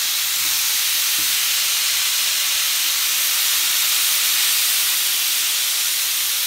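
Raw chicken pieces coated in spices and olive oil sizzling in a preheated nonstick double-sided grill pan, a loud steady hiss as the meat sears on the hot grill ridges.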